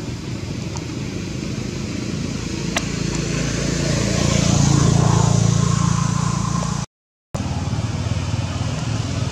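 A motor vehicle engine runs with a steady low hum that grows louder in the middle, then the sound cuts out completely for about half a second before the hum comes back.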